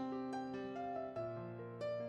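Gentle instrumental background music, with single notes struck every half second or so over a steady low note.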